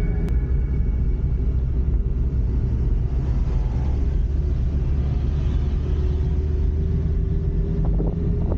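Steady low rumble of a vehicle on the move, with a faint engine tone rising slowly near the end.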